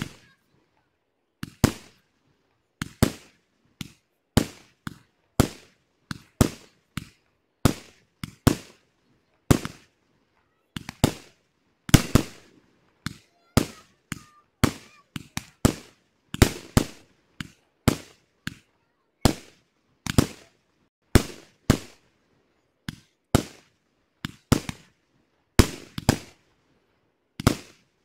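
Aerial firework shells bursting in the sky, a sharp bang roughly every second and sometimes two in quick succession, each trailing off in a short echo.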